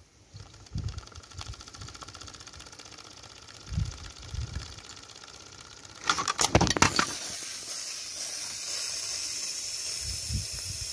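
Small homemade live steam engine running fast, a rapid stream of exhaust beats with low knocks of handling. About six seconds in there is a loud rattling burst, then a steady hiss of escaping steam.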